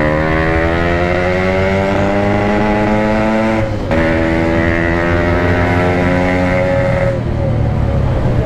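Yamaha RX-King two-stroke motorcycle with a Packing Power PK3 exhaust accelerating: the engine note climbs for about four seconds, breaks off briefly at a gear change, climbs again, and falls away near the end as the throttle closes.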